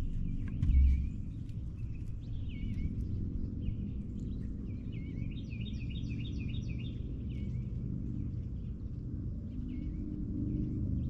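Songbirds calling, with a quick run of about six repeated notes near the middle, over a steady low rumble; a brief low thump about a second in.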